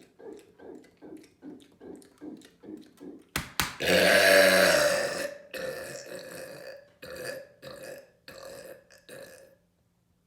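A man's loud, drawn-out mega burp about four seconds in, lasting over a second and fading away, just after two sharp clicks. Before it come quick rhythmic breaths, about three a second, and weaker ones follow after.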